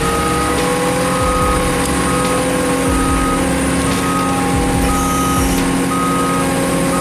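A heavy machine's reversing alarm beeps about once a second over the steady running of its engine.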